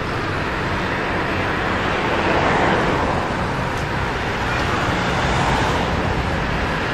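Road traffic on a busy multi-lane road: a steady rush of cars and pickups driving past, swelling a little as vehicles go by.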